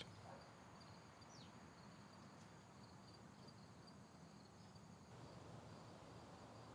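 Near silence: faint background ambience with soft, high-pitched chirps that come and go.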